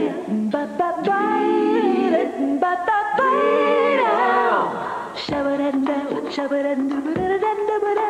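Music with singing: sung notes held for up to about a second, sliding up and down in pitch.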